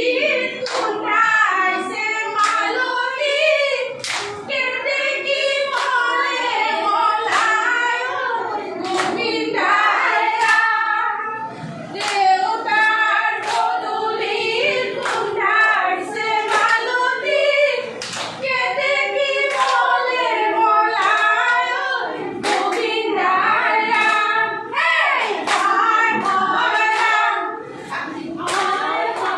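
A group of women singing together, with sharp hand claps about once a second keeping time as they dance in a circle.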